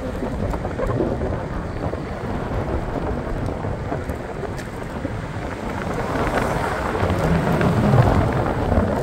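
Wind rushing and buffeting over the microphone on a moving scooter, with road noise beneath; it swells louder about two-thirds of the way in.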